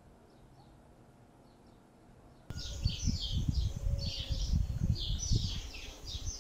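Songbirds chirping, faint at first, then loud and dense from about two and a half seconds in, over a low, gusty rumble.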